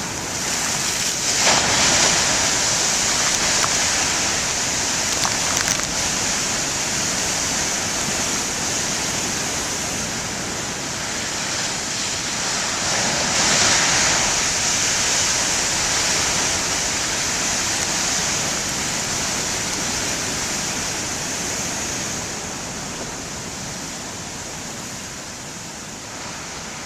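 Heavy ocean surf: a continuous wash of breaking waves, swelling as a wave crashes about two seconds in and again around the middle, and easing off a little near the end.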